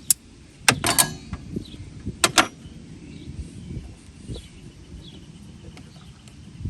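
Hand tools clinking and knocking against metal while brake lines are undone and refitted on a master cylinder: a few sharp clicks in the first two and a half seconds, two of them close together, then quieter handling.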